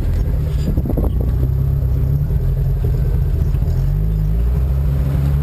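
Suzuki 4x4's engine running while driving off-road, its pitch rising and falling with the throttle. A few knocks and rattles come about a second in.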